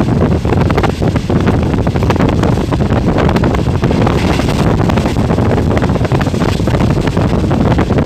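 Passenger train running at high speed, its steady rumble and clatter buried under heavy wind buffeting on the microphone.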